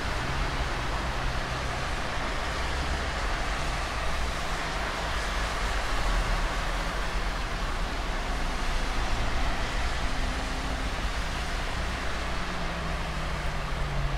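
Steady rain with city traffic on a wet road: an even hiss of rain and tyres over a low engine hum, swelling a little in the middle as cars pass.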